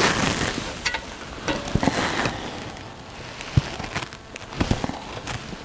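Kitchen knife cutting through food on a cutting board: a rustling scrape at the start as the blade goes through, then a few scattered light knocks of the blade on the board.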